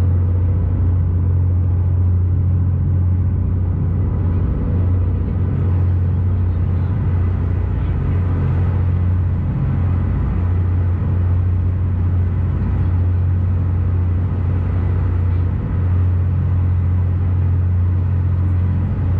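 Ferry boat's engine running steadily while under way: a loud, low, even drone.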